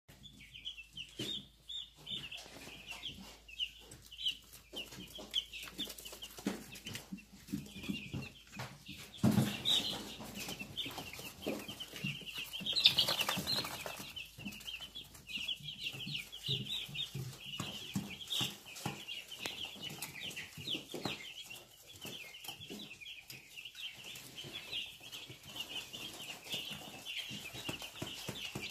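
A brood of baby chicks peeping continuously, many high chirps overlapping. Scattered knocks sound under it, and there are two louder stretches of noise about nine and thirteen seconds in.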